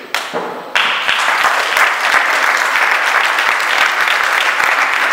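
An audience applauding: many hands clapping in a dense, steady patter that starts about a second in and keeps going.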